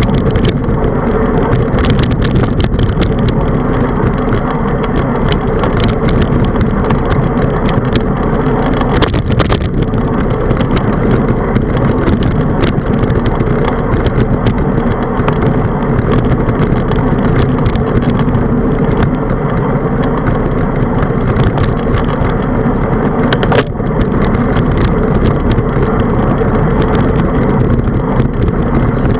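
Handlebar-mounted camera on a bicycle riding a paved road: a steady rumble of wind on the microphone and road vibration, with frequent small clicks and rattles.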